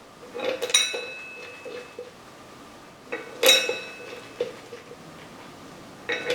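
Metal tools or parts clinking together in three short groups, each strike leaving a brief bright ring: about half a second in, around three and a half seconds in, and again near the end.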